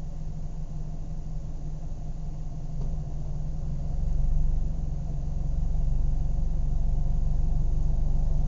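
Car engine idling steadily with a low hum, growing a little louder about three to four seconds in.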